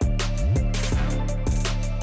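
Background music with a deep bass line and a steady drum beat.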